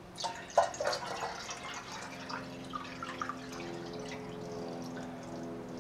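Water poured from a measuring cup into a tea kettle that is nearly full, splashing in the first second and then running steadily into the kettle.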